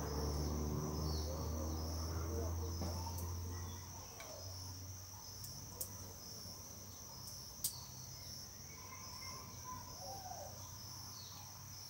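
Insects chirring steadily with a pulsing high note, over a low hum that fades about four seconds in. A few faint sharp clicks midway come from a knife splitting the cut stem of a jambo seedling to make a cleft for grafting.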